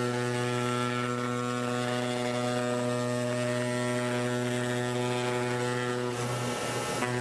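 CNC gasket cutting machine's pneumatic oscillating knife buzzing steadily as it cuts graphite gasket sheet. The buzz wavers briefly near the end.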